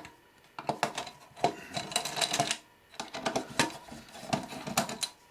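A small metal shield box being opened on a circuit board: irregular metallic clicks, taps and scrapes of screws and a screwdriver on metal, with short pauses.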